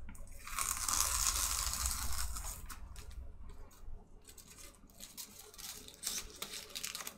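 A dry rustling or scraping noise for about two seconds, followed by scattered light clicks and taps.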